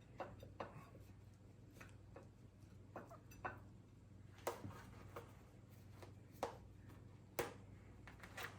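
Faint, scattered clicks and knocks of serving utensils against plates and dishes while food is dished out, about eight taps spread unevenly, over a low steady hum.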